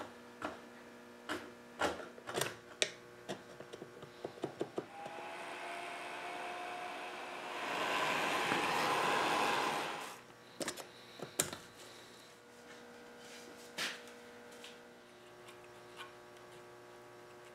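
Small tool taps and scrapes on wood, then a small rotary power tool spins up and grinds for about two and a half seconds near the middle, cleaning old glue off a chair tenon, and stops suddenly; a few more light taps follow.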